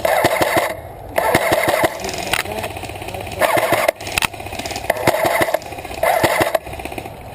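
Airsoft electric rifle (AEG) firing full-auto: about five short bursts, each under a second, of rapid clicks over a motor whine.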